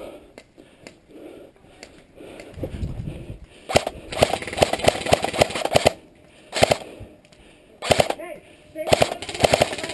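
Airsoft electric guns firing in rapid bursts of sharp cracks: a long burst of about two seconds near the middle, then shorter bursts and a few single shots toward the end.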